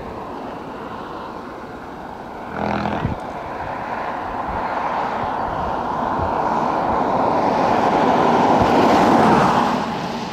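A vehicle passing on the road, its tyre and engine noise building slowly for several seconds, peaking about nine seconds in, then falling away quickly. A brief louder hum comes about three seconds in.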